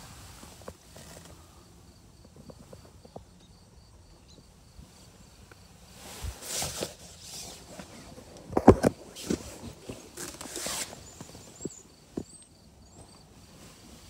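Rustling and knocks from someone shifting about inside a rooftop tent, with swishes of tent fabric and a sharp knock a little past the middle. A faint high ticking repeats about four times a second underneath.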